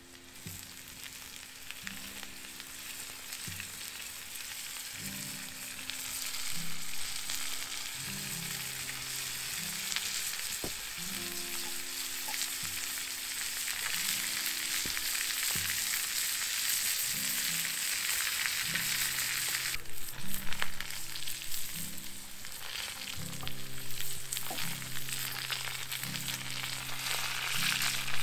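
Food frying and sizzling in a hot pan over a fire, growing louder a few seconds in, with a few sharp clicks along the way. Soft background music with slow held notes plays underneath.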